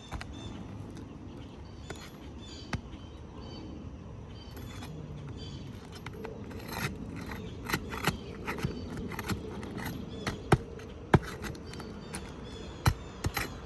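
Scattered sharp clicks and knocks of tools working under asphalt roof shingles to free their nails, over a steady outdoor background hiss; the knocks come mostly in the second half.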